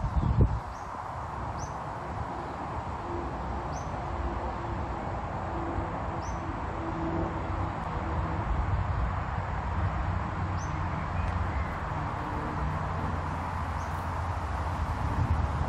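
Outdoor ambience of wind rumbling on the microphone, with a bird's short high chirps repeating every second or few. A bump about half a second in is the loudest sound.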